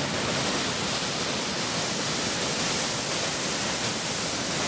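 A 60-to-70-foot waterfall pouring onto rocks: a steady, even rush of falling water with no let-up.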